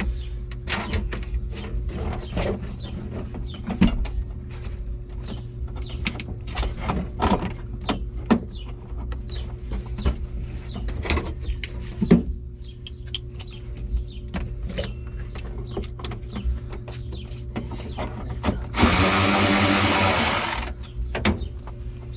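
Scattered clicks and knocks of parts being handled and fitted, over a steady low hum. Near the end a power drill runs for about two seconds.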